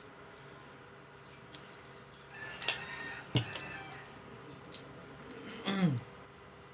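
Eating a meal off a plate: a few light taps and a sharp click in the middle, then a short sound falling in pitch near the end.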